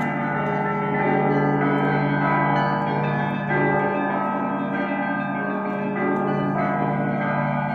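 Russian Orthodox church bells being rung: many bells of different pitches struck one after another and ringing on together, over a steady deep hum.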